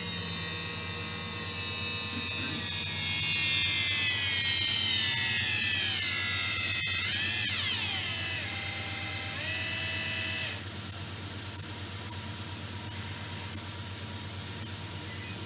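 High-speed CNC milling spindle of a KERN 1016 whining as it spins down from high speed, its pitch falling slowly. Around seven seconds in the pitch swoops down and back up, holds steady briefly, and the whine cuts off about ten seconds in, leaving a steady hiss.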